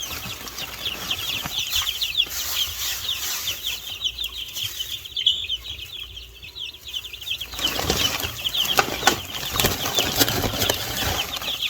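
A flock of young meat-bird chickens peeping all at once, a dense chorus of short, high, falling chirps. From about seven and a half seconds in, rustling and scuffling noises join the peeping.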